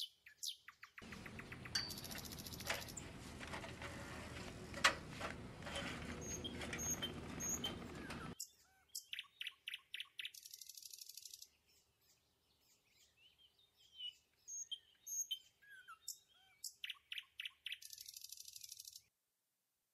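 Small birds chirping, with short calls and rapid repeated trills. A steady hiss lies under them for the first eight seconds or so, then drops out.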